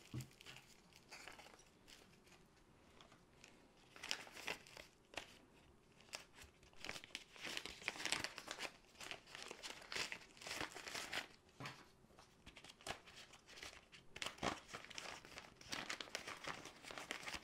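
Small plastic bags crinkling and rustling as hands handle and open them, in irregular crackly bursts that start a few seconds in.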